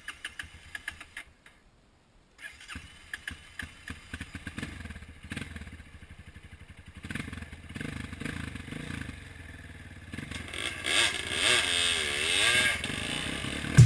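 Off-road trail motorcycle engine running over rough ground, with knocks and rattles. It grows louder, and its note rises and falls repeatedly near the end as the throttle is worked.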